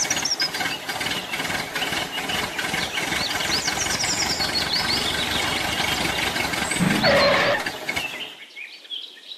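Tractor engine running steadily, with birds chirping over it; the engine sound stops shortly before the end.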